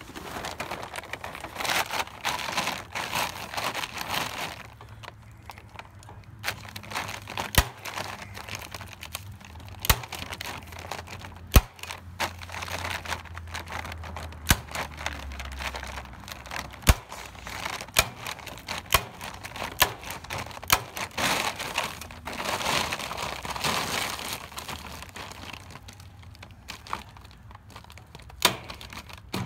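Empty feed bag crinkling and rustling as it is handled and pressed against the wire, with many sharp snaps of a manual staple gun driving T50 staples to fasten it, coming one at a time at uneven intervals.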